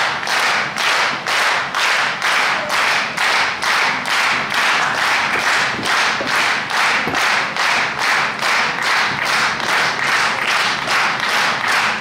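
Crowd clapping together in a steady rhythm, about two and a half claps a second.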